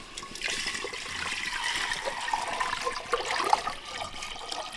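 Water poured from an aluminium bowl into an aluminium cooking pot: a steady splashing stream, starting about half a second in.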